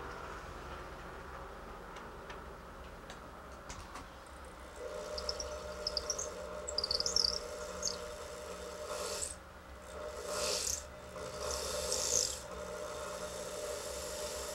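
A small motor-driven tool starts humming steadily about five seconds in. Scratchy, rasping strokes come over it as it works on acrylic, the strongest three short passes a little past the middle.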